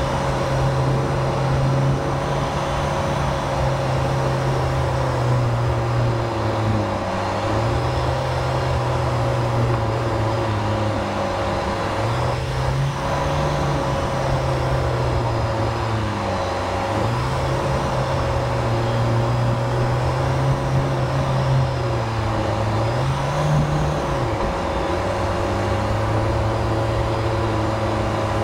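Jeep Wrangler JL engine running at low revs, its pitch dipping and climbing back every few seconds as the throttle comes off and on while driving off-road.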